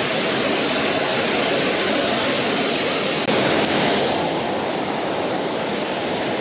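Steady rush of water from a 30-foot waterfall, an even, unbroken noise.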